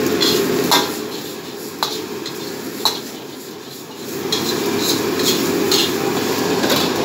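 Metal ladle scraping and knocking against a wok as fried rice is stir-fried, in sharp irregular clicks, over the steady rushing noise of a gas wok burner. The burner noise drops for a few seconds in the middle while the wok is lifted off the flame.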